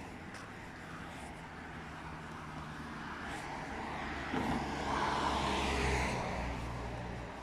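A car driving past on the street. Its engine and tyre noise builds up, is loudest about five to six seconds in, and then fades.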